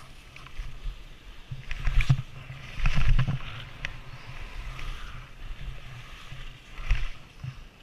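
Skis hissing and scraping over packed snow on a downhill run. Wind buffets the microphone in low rumbling gusts, loudest about two and three seconds in and again near the end.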